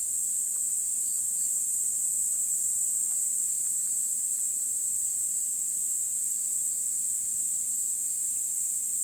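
A steady chorus of insects in the forest: a dense, continuous high-pitched buzz that holds at an even level throughout.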